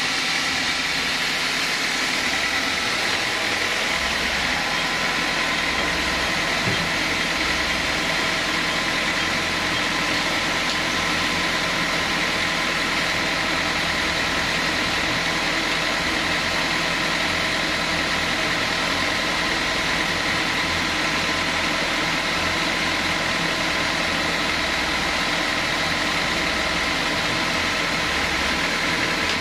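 Band sawmill running steadily, its blade and drive making a constant mechanical noise with a steady high whine.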